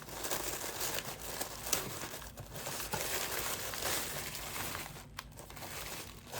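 Plastic packaging crinkling and rustling as items are pulled out of a subscription box, with scattered short crackles.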